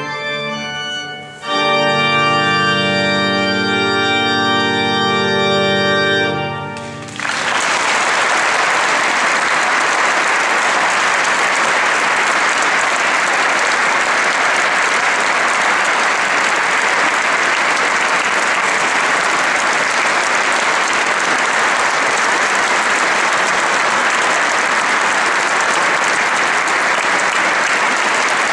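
Tornaghi pipe organ closing a piece: a chord breaks off briefly, then a final full chord is held about five seconds and released. Steady audience applause follows and carries on to the end.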